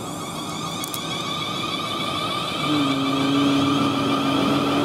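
Siemens Desiro Class 450 electric multiple unit pulling out of the platform: a steady multi-tone whine from its traction equipment over wheel and rail rumble. A lower hum joins about three seconds in as the motor coaches pass, and the sound grows louder.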